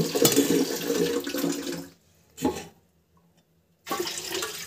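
Spoon stirring thick idli batter in a steel bowl: wet slopping and squelching. It breaks off into silence about two seconds in, with one short sound in the gap, and starts again near the end.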